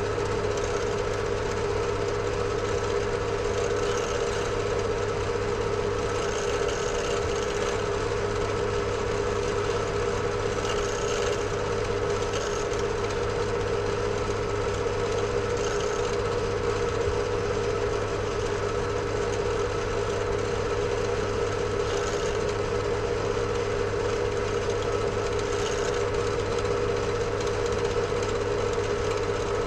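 Pillar drill (bench drill press) motor running with a steady hum while a miniature bit drills through a bone guitar nut.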